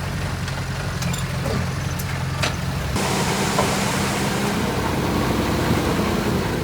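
Heavy construction machine's diesel engine running at a steady pitch. About three seconds in the sound changes abruptly and a hissy layer joins the engine note, with a couple of short clicks earlier on.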